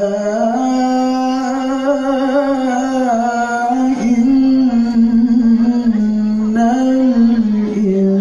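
A solo reciter chanting the Qur'an in the melodic tilawah style through a microphone, holding one long drawn-out note that wavers slightly, with small melodic turns and a new phrase beginning near the end.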